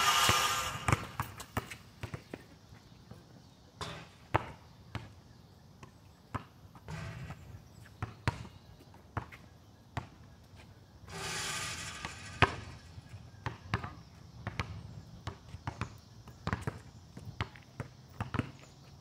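Basketball bouncing on an outdoor asphalt court: irregular bounces and dribbles throughout, the loudest single thud about twelve seconds in. Two short stretches of rushing noise come at the very start and about eleven seconds in.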